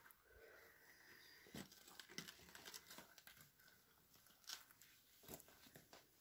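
Faint footsteps crunching on rubble and debris, a few scattered crackles over near silence.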